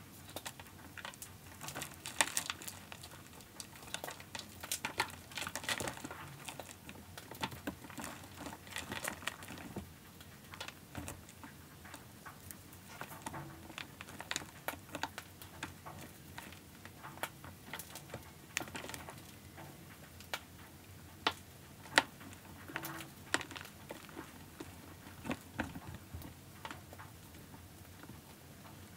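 Hands squeezing and crumbling a block of fresh gym chalk over reformed chalk pieces: an irregular run of dry crunches and crackles, played back at double speed.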